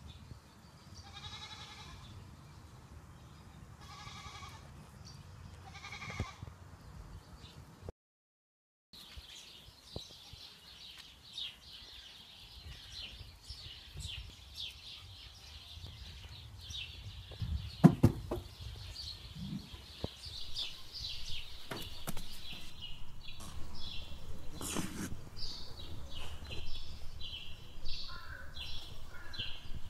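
Three short, high, bleat-like animal calls a couple of seconds apart. Then, after a break, busy high-pitched bird chirping runs on, with a single sharp knock about eighteen seconds in.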